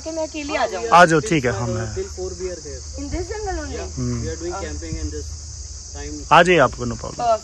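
Steady high-pitched drone of an insect chorus in the forest, with a person's voice over it, loudest about a second in and again near the end.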